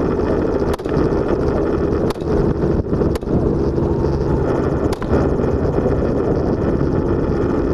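Helicopter in flight heard from on board: steady engine and rotor noise, with a few brief clicks over the first five seconds.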